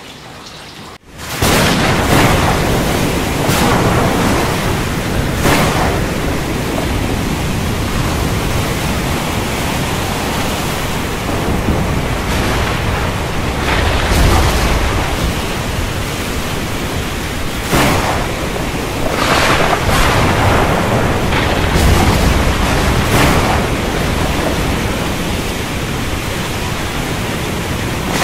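Thunderstorm: softer rain gives way about a second in to a loud, steady wash of heavy rain, with thunder rumbling and several sharp cracks through it.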